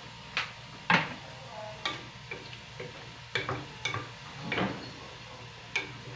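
Wooden spatula knocking and scraping against a stainless-steel pan as vegetables are stirred: about ten sharp knocks and clinks, the loudest about a second in, a few with a short metallic ring.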